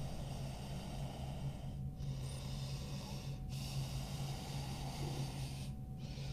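A woman breathing slowly and audibly into a head-worn microphone while holding a stretch, heard as soft hiss in breaths of about one and a half to two seconds with short pauses between, over a steady low hum.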